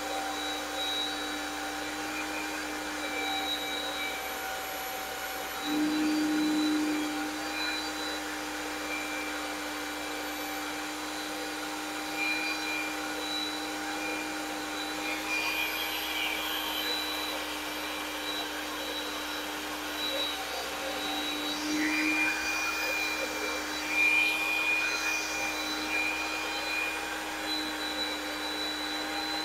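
Electric drill running steadily, spinning an engine valve by its stem while an abrasive scrub pad is held against the valve head to scrub off carbon. The sound swells briefly about six seconds in and again a couple of times near the end.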